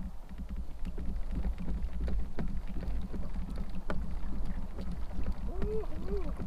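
Pedal-drive fishing kayak under way: a steady low rumble of water against the hull and drive, with many small irregular clicks and knocks. Near the end come two short squeaks that rise and fall.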